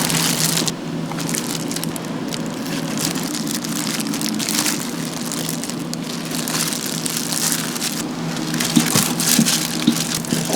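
Crackling and sizzling of an oak-wood fire roasting whole chickens, a dense run of irregular pops, over a steady low hum.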